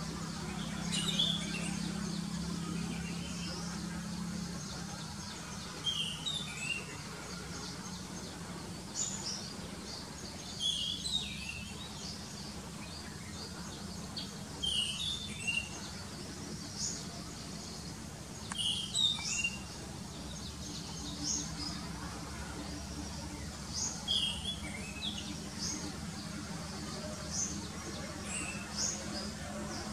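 Orange-headed thrush singing: a short whistled phrase every few seconds, with thin high notes between the phrases, over a faint low hum.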